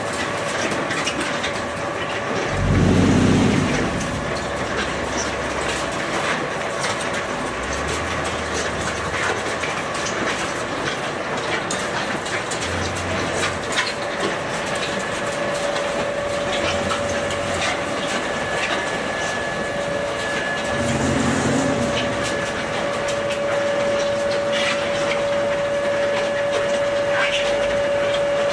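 Concrete batching plant machinery running: a steady clattering mechanical rumble with a constant whine that grows clearer in the second half. Brief low rumbles come about three seconds in, the loudest moment, and again around twenty-one seconds.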